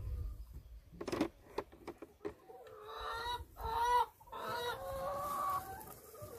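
Domestic hens clucking, one calling in drawn-out pitched notes from about three seconds in. A few sharp knocks sound in the first two seconds.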